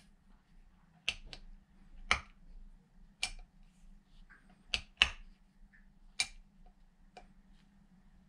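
Sharp, irregular clicks and knocks of hand tools and metal parts being handled during work on the outboard's water pump, about eight in all, over a faint steady hum.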